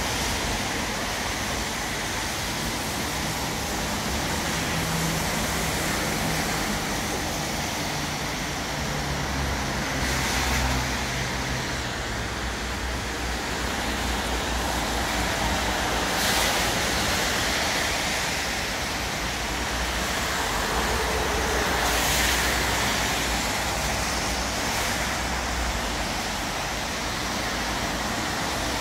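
Steady rain under city traffic: an even hiss with the low hum of passing vehicles, heaviest in the first half, and a few brief swells of hiss.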